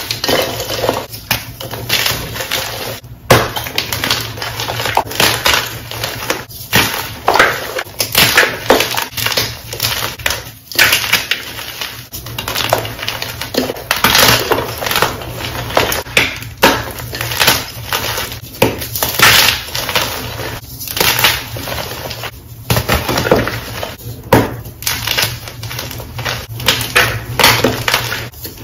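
Soft white chalk blocks crushed and crumbled in the hands: dense, irregular crunching and crackling, with a louder crunch about every second.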